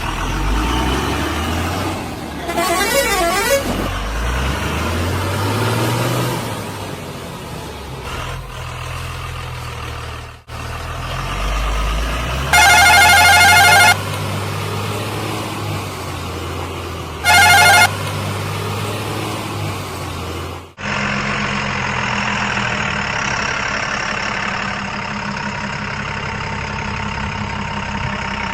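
Heavy diesel engines of a backhoe loader and tipper trucks running, the pitch rising and falling as the machine works. Near the middle a vehicle horn sounds twice, once for over a second and then briefly; later the sound cuts abruptly to a steady engine running.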